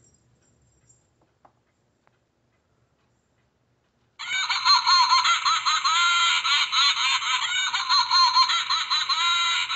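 Animated decorative Halloween witch figure playing its recorded cackling laugh through a small built-in speaker, starting suddenly about four seconds in. The cackle sounds thin and tinny, its pitch wobbling up and down.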